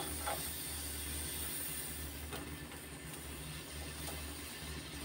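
Gas stove burner flame running under a perforated roasting mesh: a steady rushing hiss with a low rumble. A couple of faint taps come through as tomatoes are turned on the mesh.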